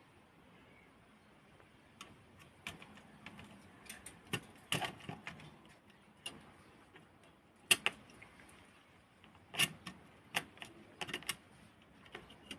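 Irregular sharp clicks and clacks of a 1978 Consul 235 portable typewriter's metal parts being handled and fitted back together. They start about two seconds in, with one loud click near the middle.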